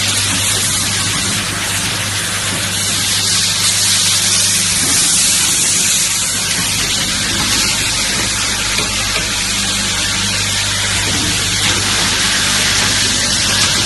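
IV infusion tube connector assembling machine running, its vibratory bowl feeders and assembly stations giving a steady low hum under a constant loud hiss.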